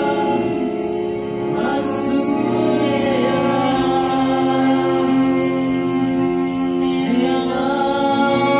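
Live kirtan music: women singing a mantra over a sustained instrumental drone of cello and sitar, with a brief jingle of bells about two seconds in.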